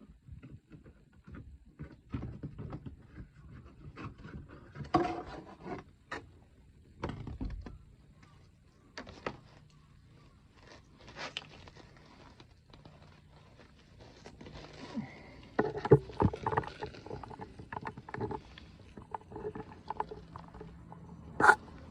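Irregular knocks, clicks and scrapes of tools and parts being handled while working on a car during an oil change, with a sharp click near the end.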